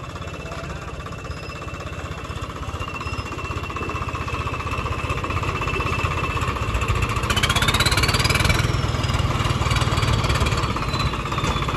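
Swaraj 855 FE tractor's three-cylinder diesel engine running with a steady low putter as the tractor creeps into position, growing louder about halfway through. A short rising whine comes in around the middle.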